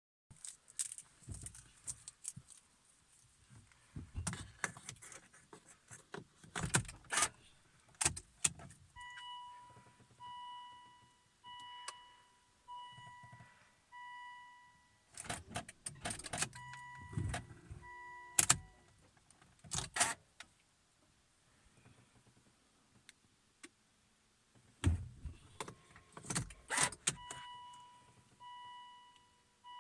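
Keys jangling and clicking in a 2005 Volvo S40 that will not start, with no engine running, as the dashboard warning chime beeps about once a second. The chime sounds for about ten seconds, stops, and starts again near the end. The no-start was caused by a failed main relay and a blown fuse.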